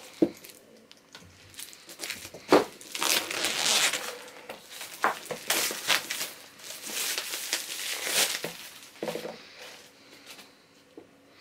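Clear plastic shrink-wrap being torn and pulled off an LP box set, crinkling and rustling in irregular bursts, with two sharp snaps in the first three seconds. It quiets near the end.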